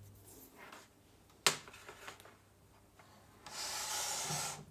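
Handling noise from a bench power supply being moved on the workbench: one sharp knock, then about a second of scraping near the end.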